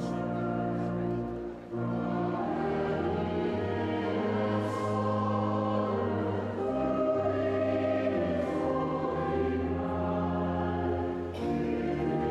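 Voices singing a slow hymn in long, held notes over a steady low tone.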